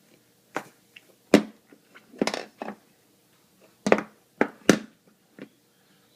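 Kitchen utensils knocking and clattering against an open dishwasher's rack as a baby handles them: about eight sharp, irregular knocks.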